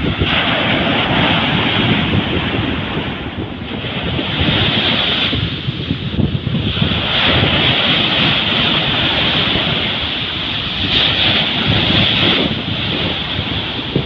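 Sea surf breaking and washing up a sandy beach, its hiss swelling and ebbing in surges every few seconds, with wind buffeting the microphone as a low rumble.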